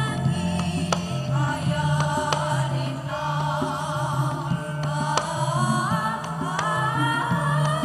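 A choir of Javanese sinden (female singers) singing together over gamelan accompaniment, with sharp drum strokes through it. The voices glide upward near the end.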